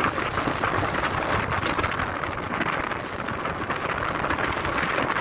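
Strong wind in a force 6–7 blow rushing over a small sailboat under sail, buffeting the microphone in steady gusts.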